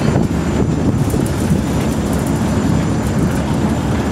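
Construction elevator car running steadily up a bridge tower, a constant low rumble and rattle.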